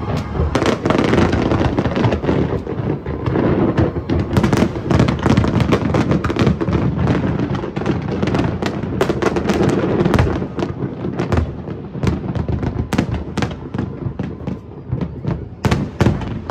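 Large fireworks display: a dense, continuous barrage of aerial shell bursts, rapid sharp bangs and crackling over a rumbling mass. It thins a little after about ten seconds into more separate cracks.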